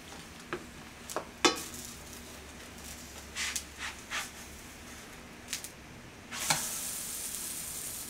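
A plastic spatula clicking and scraping against a frying pan as a banana pancake is worked loose and flipped. About six seconds in a steady sizzle starts as the pancake's raw side lands in the hot oiled pan.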